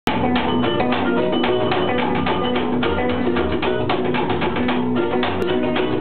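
Small live band playing an upbeat instrumental passage: ukulele and archtop guitar strumming in quick strokes over a plucked upright double bass.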